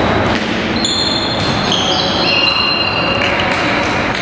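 Athletic shoes squeaking on an indoor court floor during tchoukball play: a run of short, overlapping high squeaks from about a second in to past the middle, with a couple of faint ball thuds over a steady noisy background.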